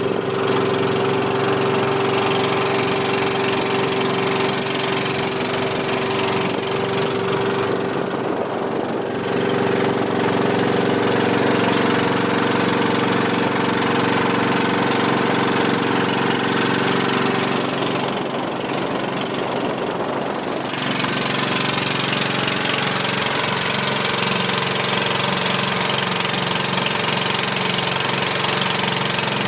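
Small passenger boat's engine running steadily under way, with a steady hum. About two-thirds of the way through, the engine note shifts and a broad rushing of wind and water grows louder.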